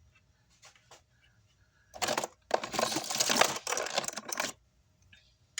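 Plastic or paper packaging crinkling as it is handled, in two bursts from about two seconds in to about four and a half seconds, after a few faint clicks.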